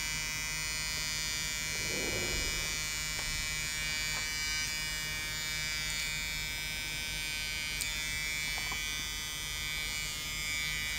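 EME279TD 3.5-inch floppy drive motor running with a steady electric buzz while the laptop accesses the disk; the drive belt is slipping, so the motor mostly vibrates and the disk hardly turns. A soft knock comes about two seconds in.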